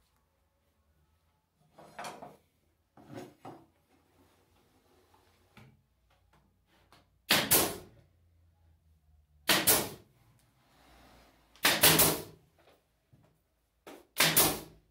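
Sharp wooden knocks from 3/4-inch MDF panels of a subwoofer box being fitted and pressed together. Two light knocks come early, then four loud ones about two seconds apart.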